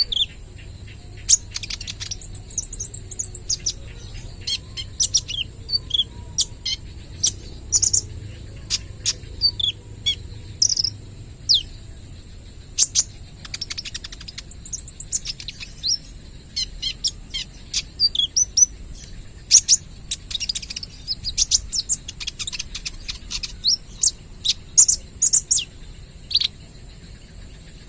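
A kolibri ninja sunbird singing: a long string of short, sharp, high chirps fired off in quick irregular runs, with a steady high-pitched hiss underneath.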